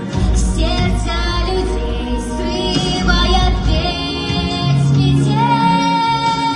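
A song: a high singing voice over instrumental backing with a steady bass, holding one long note near the end.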